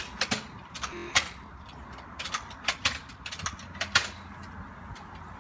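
About a dozen sharp clicks and taps at irregular intervals, over a low rumble.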